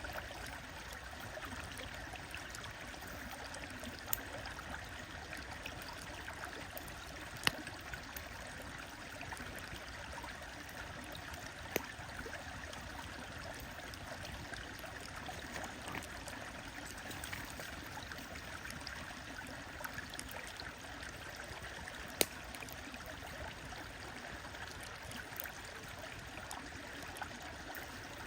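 A stream flowing steadily, with a wood fire crackling close by: a few sharp, scattered pops over the rushing water.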